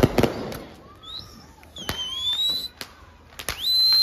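Fireworks going off: several sharp bangs, with whistling tones gliding in pitch between them. A steady high-pitched whistle starts near the end.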